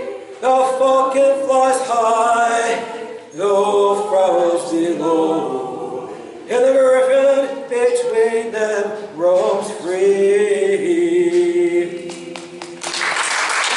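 A man singing unaccompanied, with long held notes. Applause starts near the end.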